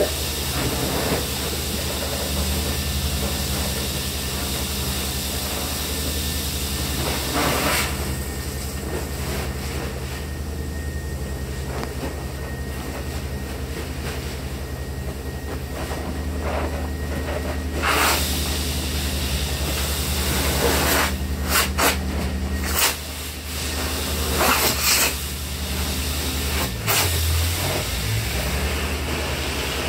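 Steady drone of heavy job-site machinery running, a low hum with a hiss over it. Several short, loud rushes of noise break in, about eight seconds in, again near eighteen seconds, and a cluster a little past twenty seconds.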